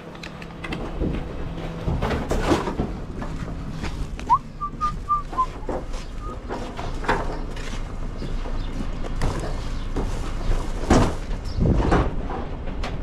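A man whistles a short phrase of a few notes about four seconds in, over the rustling and knocking of cardboard and plastic bags being carried. A refuse truck's engine runs steadily underneath.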